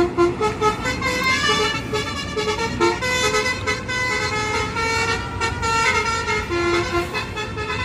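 Indonesian bus telolet horn, a multi-tone air horn, playing a tune of short stepped notes that change pitch every few tenths of a second, over road traffic noise.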